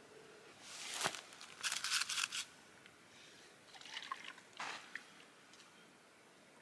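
Water sloshing inside a dried gourd canteen as it is handled, in a cluster of short splashy bursts in the first half and a few softer ones later.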